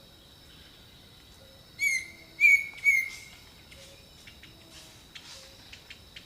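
A jungle bird gives three loud, short calls in quick succession about two seconds in, each falling slightly in pitch. Behind them is a steady high insect drone and faint distant calls.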